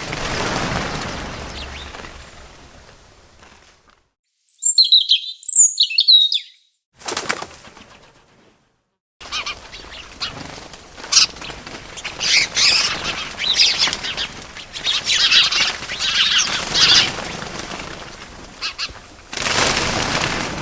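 Bird wings flapping in many irregular bursts, with a few short, high chirps about five seconds in. A rushing whoosh opens and fades over the first few seconds and comes back near the end, and there are a couple of dead-silent gaps in between.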